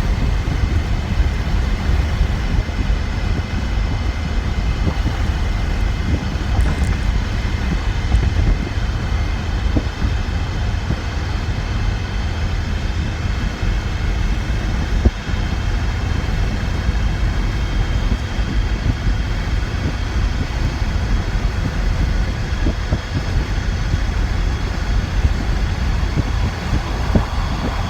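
Cab noise of a 2009 Ford Ranger pickup driving at road speed with its rear window out: a loud, steady low rumble of road and wind noise, with a faint steady high whine over it. The owner suspects a failing input bearing in the rear differential.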